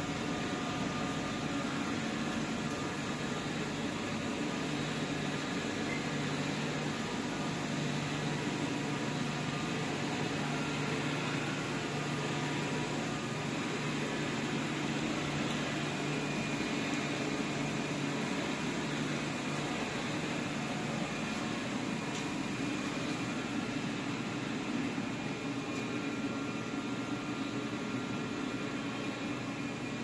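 Steady whir and hum of a PET bottle recycling line running: electric motors driving screw and belt conveyors. A low hum joins a few seconds in and drops out about two-thirds of the way through.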